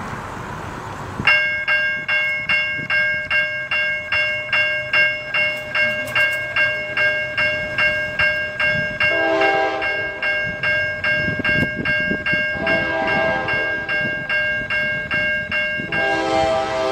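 A railroad crossing's electronic bell starts up about a second in and rings loudly, about three strikes a second. From about nine seconds in, an approaching train's horn sounds three blasts over the bell.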